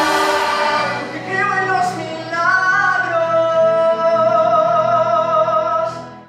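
Music with singing: several voices at first, then a single voice holding long wavering notes, cut off abruptly at the end.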